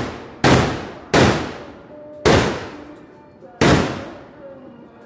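Firecrackers exploding on the ground in quick succession, four sharp, loud bangs at uneven intervals. Each bang is followed by a long echoing decay.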